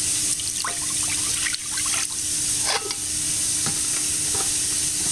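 Canned beef broth pouring into a slow cooker of sauce, with intermittent glugs and splashes. A steady sizzle of steak browning in oil in a skillet runs underneath.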